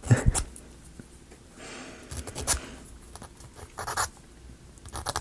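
Sanding small laser-cut plywood model pieces: short scratchy rubbing strokes, with light wooden clicks and knocks as the pieces are handled.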